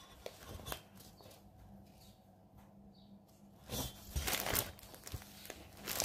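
Rustling and crinkling of a printed cross-stitch canvas being handled, with a few faint clicks at first and a run of louder rustles in the last couple of seconds.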